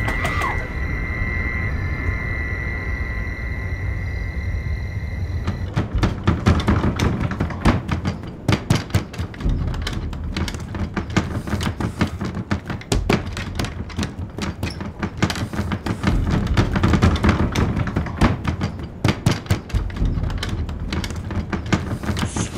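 Horror-film soundtrack: a steady high tone held for about five seconds, then a dense, irregular clatter of knocks and clicks over a low rumble.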